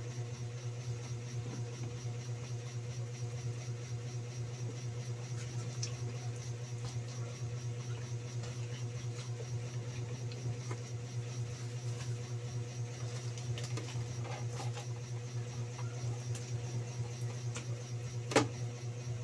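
A steady low machine hum throughout, with faint clicks and smacks of someone eating roast chicken by hand. One sharp crack, the loudest sound, comes near the end.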